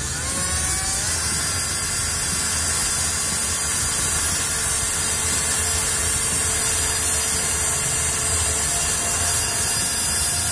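Corded electric drill with a keyed chuck running steadily while boring out a screw hole filled with hardened wood glue in a guitar's neck joint. Its whine rises as it spins up in the first second, then holds steady and cuts off suddenly at the end.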